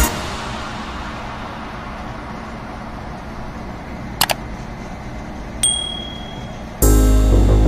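Background music cuts out, leaving a fading hum. About four seconds in come two quick clicks, then a short, high ding, and loud background music starts again near the end.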